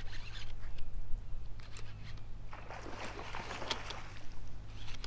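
Steady low hum aboard a fishing boat, with faint scattered clicks and light splashy noise over it.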